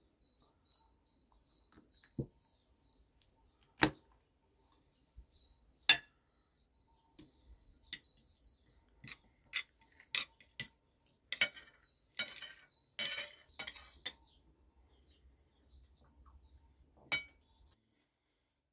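Metal spoon and fork clinking against a glass plate and a metal serving platter as food is served and eaten. There are single sharp clinks here and there, and a busier run of clinking and scraping from about eleven to fourteen seconds in.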